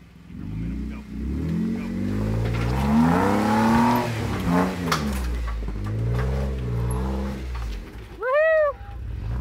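Jeep Wrangler's engine revving up and down under load as it crawls up a rock ledge, pitch highest about three to four seconds in, with a few sharp knocks from the rig on the rock. Near the end a short high-pitched call rises and falls.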